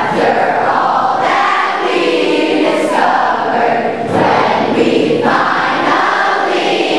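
A large group of voices singing together, a school alma mater sung as a choir.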